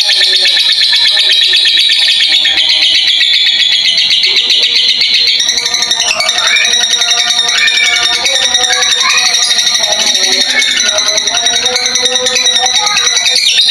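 Masked lovebird (blue mutation) giving a long, unbroken, rapid chattering trill, the 'ngekek' song that lovebird keepers prize. From about six to eleven seconds in, lower wavering notes join the high chatter.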